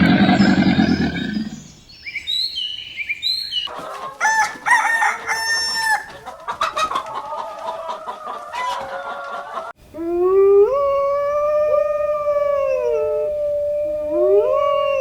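A string of animal calls cut one after another: a loud low call at the start, a few short bird chirps, then chickens clucking and a rooster crowing in quick, repeated calls, and from about two-thirds of the way in, long drawn-out calls that rise, hold and fall.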